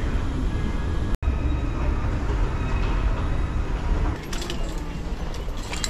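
Passenger train running, a steady low rumble with faint whining tones above it. The sound cuts out for an instant about a second in, and a few clicks come near the end.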